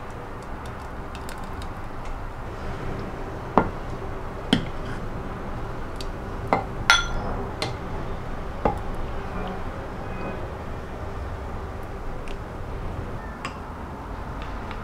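Metal ladle and porcelain spoon clinking against the clay pot and porcelain bowl as porridge is served: a handful of sharp clinks through the middle, the loudest with a brief ring, and one more near the end, over steady background noise.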